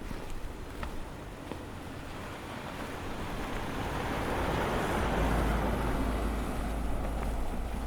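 A gust of storm wind swelling over several seconds and easing slightly near the end, with deep wind rumble on the microphone; faint footsteps in snow are heard early on under it.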